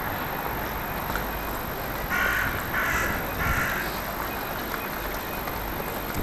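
A crow cawing three times in quick succession, over a steady hum of open-air street background.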